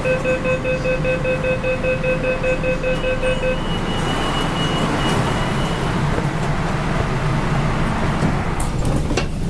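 Door-closing warning of an MTR K-train: a rapid, evenly pulsed beeping that stops about three and a half seconds in, overlapped near its end by a higher, fainter beeping for a couple of seconds. Under it runs the steady hum of the train at the platform, with a few sharp clicks near the end.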